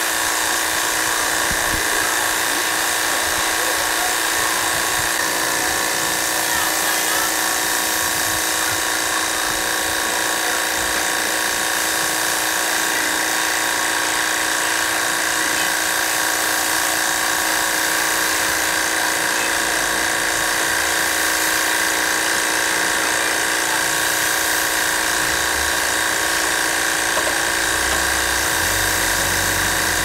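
Electric washer pump running with a steady, multi-toned whine while its spray wand hisses water onto an air-conditioner outdoor unit's condenser coil. A low rumble comes in near the end.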